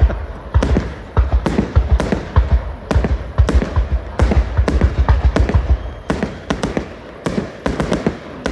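Aerial firework shells bursting in quick succession, about two deep, echoing bangs a second, thinning out and getting quieter near the end.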